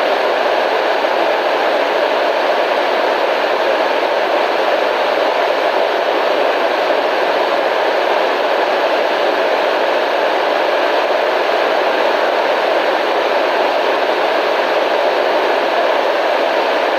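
Constant radio static: a steady, even hiss with no breaks or changes, fullest in the middle range and thin in the bass and top treble.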